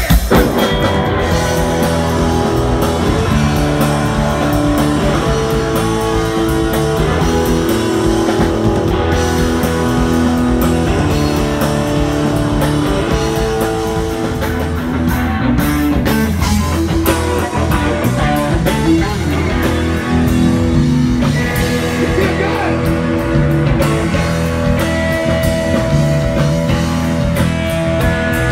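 Live blues-rock band playing, with an electric guitar taking the lead over bass and drums, holding long sustained notes between faster runs.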